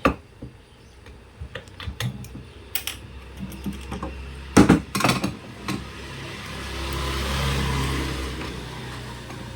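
Sharp metallic clicks and knocks of small tools working on a ceiling fan's ball bearing as its seal is pried off, the loudest cluster about halfway through. A rushing noise with a low hum swells and fades near the end.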